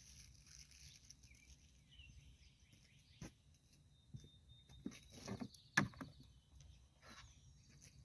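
Birds chirping and whistling in the background, with a few knocks and scuffs of boots walking on concrete; the loudest is a sharp tap about six seconds in.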